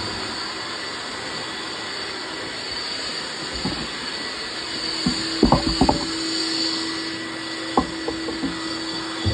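Shop vacuum dust extractor running steadily through the hose of a dust-extraction sanding block, a steady hiss with a hum. A cluster of knocks about five to six seconds in and a couple more near the end as the hose and sanding block are handled.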